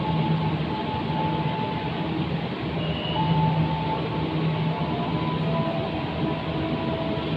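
Passenger train carriages rolling slowly along a station platform as the train arrives: a steady rumble of wheels on rails, with short high squeals from the wheels and brakes now and then.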